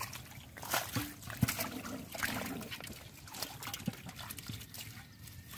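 Shallow muddy water sloshing and dribbling as hands grab fish from the mud and handle them in a water-filled aluminium pot, with irregular wet slaps and clicks.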